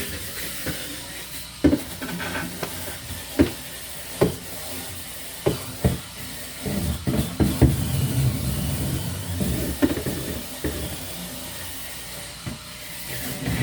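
Cleaning inside a refrigerator: scrubbing and rubbing over a steady hiss, with scattered knocks and clacks of items being handled. The scrubbing grows fuller from about halfway in.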